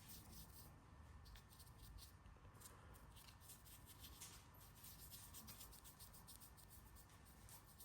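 Faint, irregular scratching of a paintbrush working paint over a 3D-printed figure, close to near silence.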